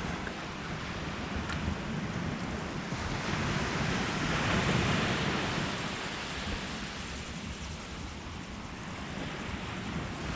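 Sea surf breaking and washing up the beach, swelling to a peak about halfway through and then easing off, with wind rumbling on the microphone.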